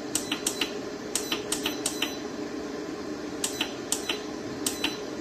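Buttons on a hybrid inverter's control panel being pressed: sharp plastic clicks in small clusters as the menu is stepped through to a setting, with a pause of about a second in the middle.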